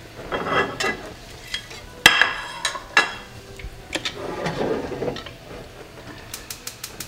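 Cooking utensil knocking and scraping against a pan as patties are laid into sauce: scattered clinks, the loudest a ringing clink about two seconds in.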